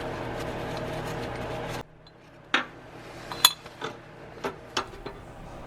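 Sharp metallic clinks of hand tools and bolts, about six separate clinks at uneven intervals. Before them a steady low hum cuts off suddenly about two seconds in.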